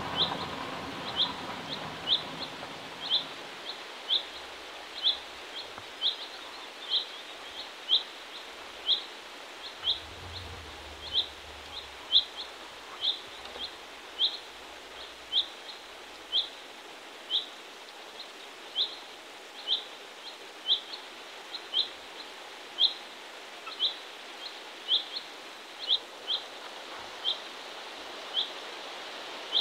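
A small songbird repeating one short, high, thin note that slides slightly downward, about once a second, over a faint steady hiss of the open air.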